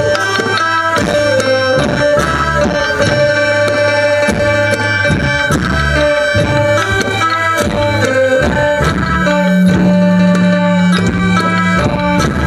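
Live Thai folk dance music: sustained reedy chords and melody over a steady drum beat, with a low note held for about two seconds near the end.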